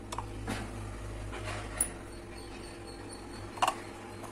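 Plastic bottle pieces being handled and fitted together: a few short, sharp clicks and taps, the loudest near the end, over a steady low hum.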